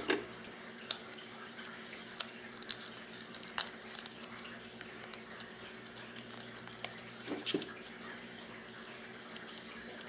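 Soft rustles and scattered small ticks of paper sticker sheets being handled and stickers peeled from their backing, with a slightly louder cluster about seven seconds in, over a steady low hum.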